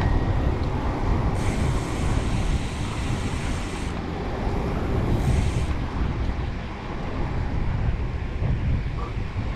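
Wind rumbling over the microphone of a camera on a moving bicycle, mixed with road traffic noise. A higher hiss comes in twice, from about a second and a half in and again briefly about five seconds in.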